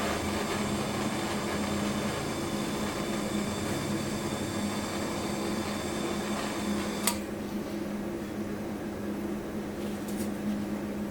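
Gas torch hissing steadily as it heats a metal tube joint for soldering, over a steady low hum. A sharp click about seven seconds in, after which the hiss drops.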